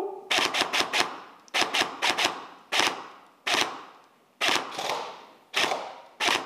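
Airsoft guns firing about a dozen sharp shots, in quick runs of three or four and single shots, each followed by a short ringing echo.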